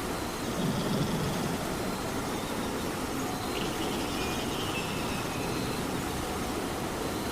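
Steady rain falling, with a cat's low snore about a second in.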